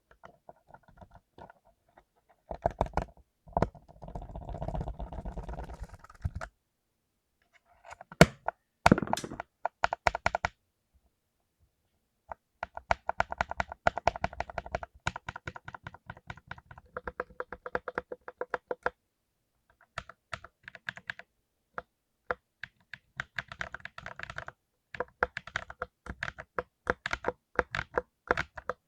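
Mechanical keyboard with clicky blue switches being typed on in fast runs of a few seconds each, with short silent pauses between runs.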